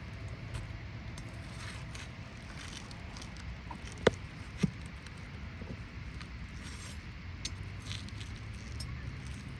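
Two sharp metallic clicks about half a second apart, with faint lighter clinks around them, from a roofing tool working a nail out of an asphalt shingle, over a steady low rumble.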